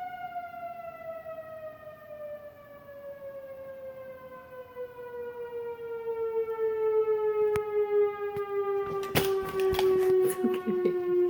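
Outdoor tornado warning siren sounding one long tone with overtones, slowly falling in pitch. From about nine seconds in, sharp clicks and rattles sound close by.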